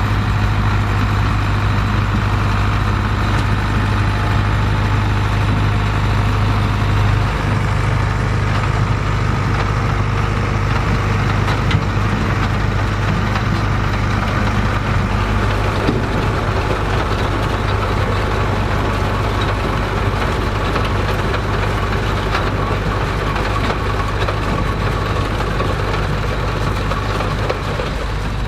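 Tractor engine running steadily with a constant low hum.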